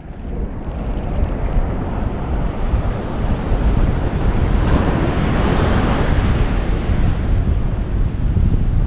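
Wind buffeting the microphone over the steady wash of ocean surf breaking on the beach. The noise builds over the first second and swells about halfway through.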